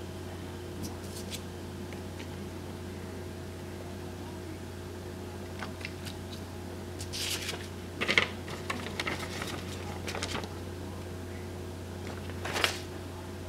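Light handling noises over a steady low hum: the crinkle and rustle of a plastic-backed sheet of nail wraps being handled, in a few bursts in the middle, and a short rustle of a paper card near the end.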